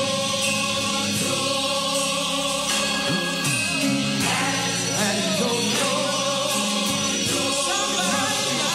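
Gospel music: a choir singing over steady instrumental backing.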